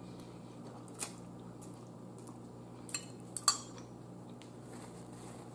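Quiet eating sounds: a few short clicks and taps of a fork on a plate of pasta and crab, with chewing, the sharpest click about three and a half seconds in, over a faint steady hum.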